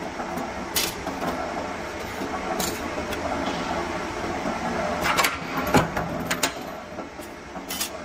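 Steady hum of a running punching machine, with sharp metal clinks as steel plates are taken out of and placed into its die: one near the start, one in the middle, a cluster with a heavier clank about three-quarters of the way through, and one more near the end.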